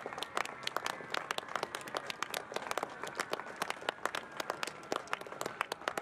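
Crowd applauding: many hands clapping irregularly, with a faint steady high whine underneath.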